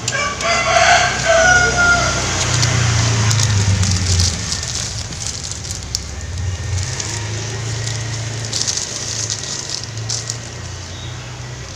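A drawn-out animal call with wavering pitch in the first two seconds, then the crinkle of a plastic mailer bag being handled, over a low steady hum.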